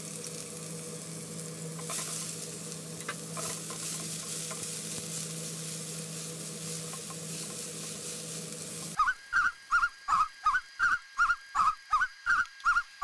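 Chopped onion sizzling in hot oil in a frying pan as it is stirred with a spatula. About nine seconds in, the frying sound cuts out abruptly and a run of about a dozen loud, short, high chirps follows, roughly three a second.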